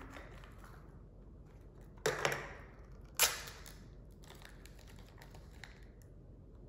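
A small clear plastic wrapper and plastic toy capsule being handled and opened: light clicks and crinkling, with two louder sharp sounds about two and three seconds in.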